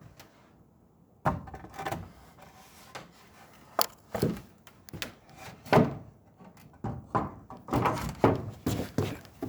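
A series of irregularly spaced wooden knocks and thuds in a small room, starting about a second in.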